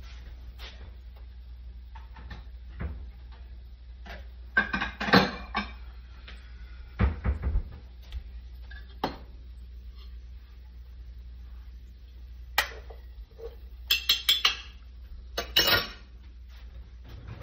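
A stainless steel pan and cooking utensils clattering as the pan of corned beef hash is handled and taken off the electric stove. There are several short bursts of clinks and knocks over a steady low hum.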